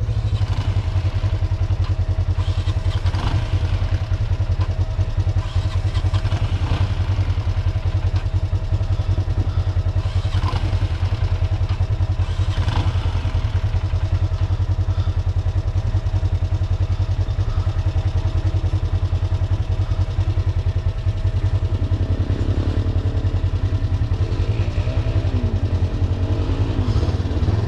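Off-road buggy engine running steadily under way, heard from on board as a constant low rumble.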